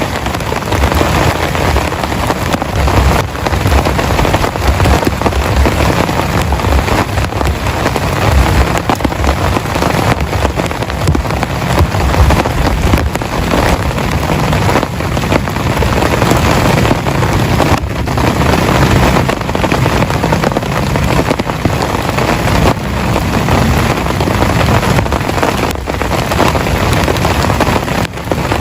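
Heavy rain pouring steadily, a loud, dense hiss with a low rumble underneath.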